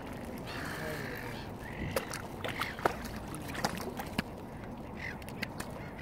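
Outdoor waterside ambience: short bird calls a few times, with several sharp clicks or knocks between about two and four and a half seconds in, over steady low background noise.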